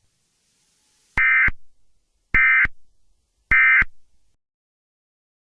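Emergency Alert System end-of-message signal: three short bursts of SAME digital data tones, each about a third of a second long and a little over a second apart, marking the close of the alert.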